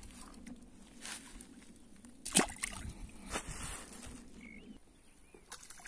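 A small fish dropped by hand into shallow reservoir water lands with a sharp splash a couple of seconds in, followed by a brief, rougher stretch of water sloshing.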